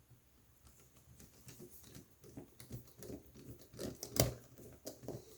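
Laptop parts being handled and fitted during reassembly: a run of small, irregular plastic clicks and taps that grow busier, with one sharper click about four seconds in.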